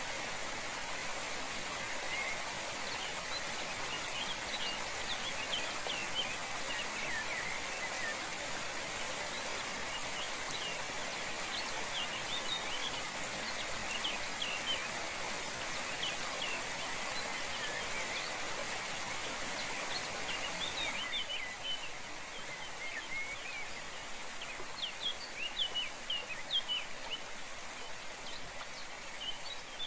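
Steady rush of a waterfall's running water, with many small birds chirping over it in short, quick calls. The water sound steps down a little about two-thirds of the way through.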